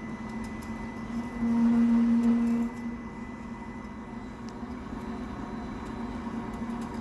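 MIG welder's wire feed motor driving wire through the gun at a turned-up wire speed: a steady hum that comes in about a second and a half in and stops about a second later, over the welding machine's lower steady hum.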